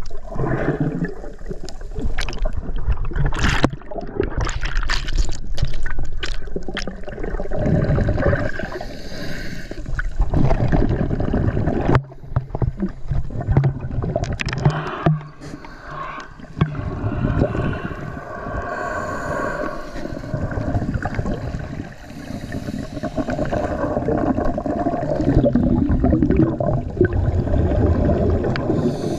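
Water gurgling and sloshing close to the microphone, with a run of sharp knocks and clicks in the first several seconds.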